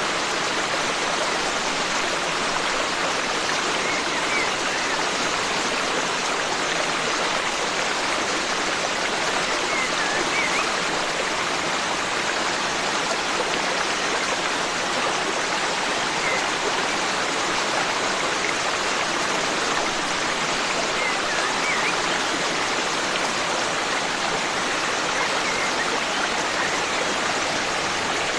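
Forest stream flowing steadily, a continuous rush of water, with a few faint, brief bird chirps now and then.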